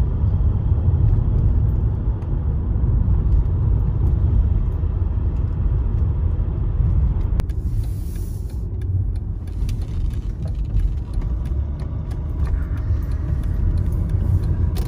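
Steady low rumble of road and engine noise inside a moving Mercedes car, with a single sharp click about halfway through.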